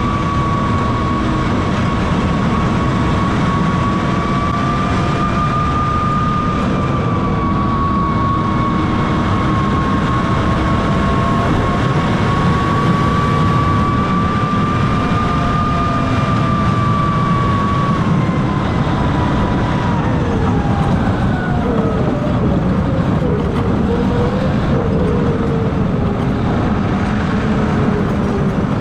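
John Deere 6155R tractor running steadily under load while pushing a front snow plow through snow, a heavy low rumble with a high whine on top. The whine holds steady, then falls in pitch toward the end.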